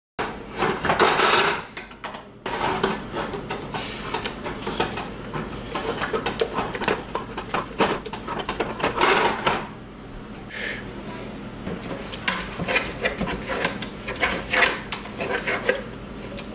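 A metal fork clinking and scraping against the inside of a pot in quick, irregular strokes, mashing cooked navy beans into a paste.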